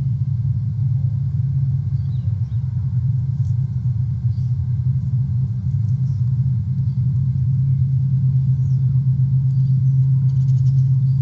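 A steady low rumble, growing a little louder toward the end, with faint, scattered high bird chirps over it and a quick rattling call near the end.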